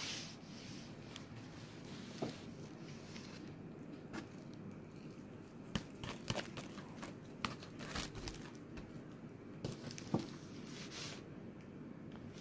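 Faint rustling and crinkling of tissue paper as a cat paws and pushes at it, with scattered light clicks and scratches.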